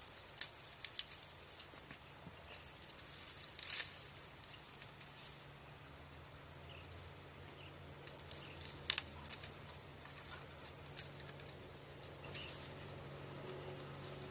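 Dry reeds and grass crackling and rustling close by in scattered sharp clicks as a person pushes through the brush, with the sharpest crack about nine seconds in. A faint steady low hum runs underneath.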